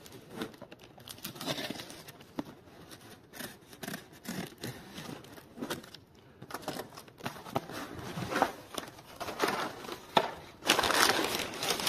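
A Böker Kaliber knife blade slitting the packing tape on a cardboard box, with irregular scraping and tearing of tape and cardboard. Near the end the box flaps are pulled open and the packing paper inside rustles and crinkles, louder than the cutting.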